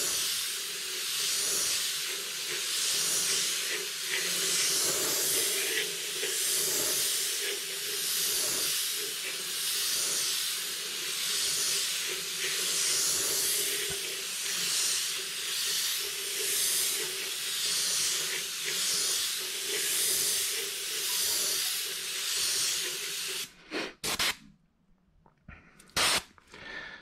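Airbrush spraying gray base-coat paint: a steady hiss of air and paint that swells and eases every second or so with each pass across the plate. The spraying stops near the end, followed by a few short clicks.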